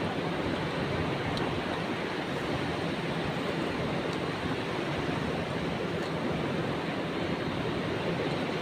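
Steady rushing of sea surf and wind, even and unbroken, with a few faint clicks.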